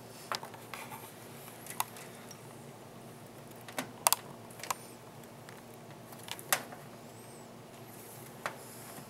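Irregular sharp plastic clicks and taps, about ten of them, as the case's front-panel connector cables are handled and pushed onto the motherboard's header pins. A faint steady hum sits underneath.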